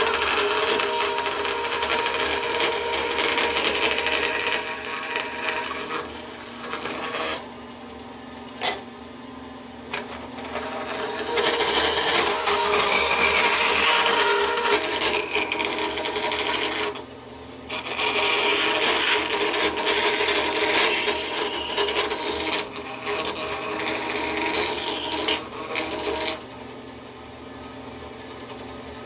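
Vertical bandsaw cutting through a small piece of aluminum: a harsh, noisy cutting sound in long stretches. It breaks off for about four seconds, with a couple of sharp clicks, a third of the way in, and briefly again a little past halfway. Near the end the cutting stops and the saw runs on without load, quieter and steady.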